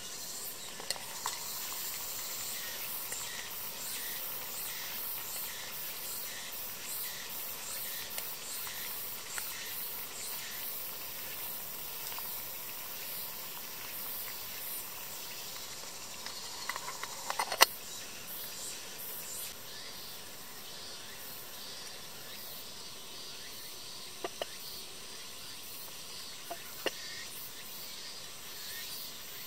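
Water in an aluminium camping kettle hissing steadily as it heats over a spirit burner, with a few metallic clinks of the kettle lid, the loudest cluster about halfway through. Insects buzz faintly in the background.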